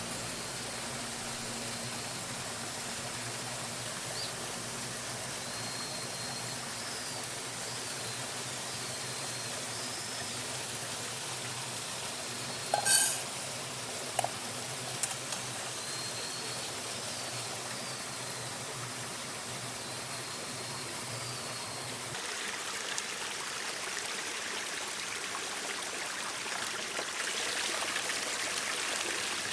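Steady rush of flowing water, like a mountain stream, with faint high bird chirps over it. A sharp click about halfway through, followed by a couple of smaller ones.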